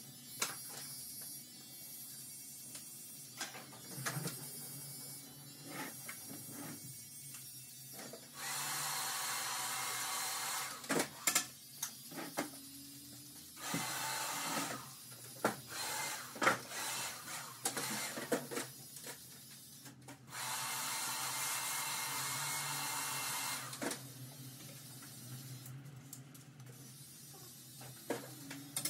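Barber's haircut tools at work: many sharp clicks of cutting tools against the hair, broken three times by spells of steady hissing, the longest about three seconds.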